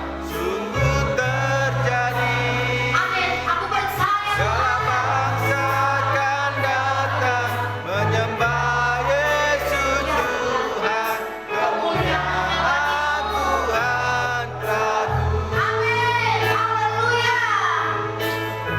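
Worship song: several voices singing together over a band, with a bass line holding notes that change every second or two.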